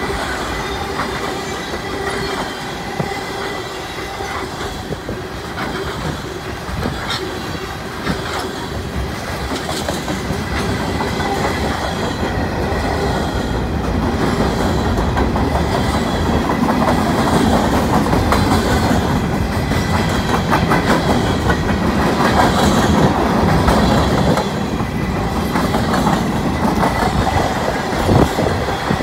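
Freight train's tank cars and covered hoppers rolling past close by: a steady rumble of steel wheels on rail with repeated clacks over the rail joints, growing louder about halfway through.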